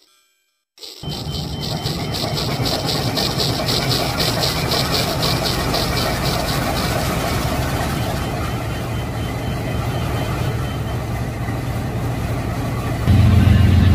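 Diesel locomotive engine running steadily, with a fast, even clatter for the first half; a deeper, louder engine note comes in near the end.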